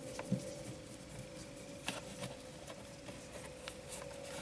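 A few faint clicks and scrapes from a screwdriver undoing a plastic screw in a BMW E46's plastic steering-column cover, over a steady faint hum.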